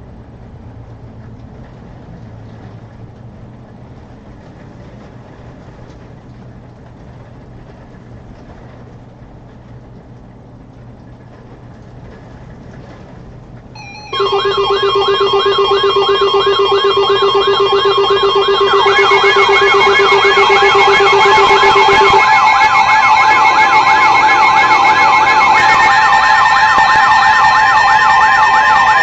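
Steady static hiss for about 14 s, then a loud layered blend of electronic alarm tones cuts in suddenly: steady tones under fast up-and-down warbling siren-like sweeps, which run on to the end.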